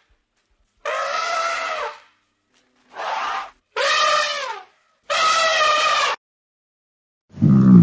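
Four high, drawn-out animal calls, each up to about a second long with short silences between them, followed near the end by the start of a much lower, louder call.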